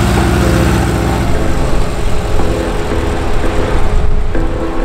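Volkswagen Type 2 bay-window bus's air-cooled flat-four engine running as the van drives past on the street. Its low engine note is strongest for the first second and a half, then gives way to more even street traffic noise.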